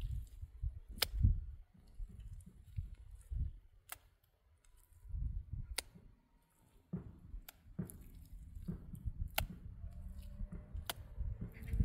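Hands pressing and slapping wet mud plaster onto a cinder-block wall: soft squelching thuds with a pause in the middle, and a sharp click every second or two.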